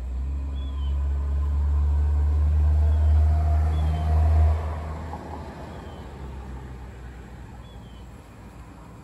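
Low engine rumble of something passing by: it comes in at the start, is loudest about four seconds in, then fades away over the next few seconds. A bird gives a short, faint chirp about every second and a half.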